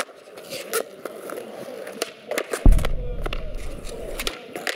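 Skateboard wheels rolling on concrete, with the sharp clacks of the tail popping and the board landing during flatground tricks. About halfway through comes a heavy low thud followed by a deep rumble lasting over a second.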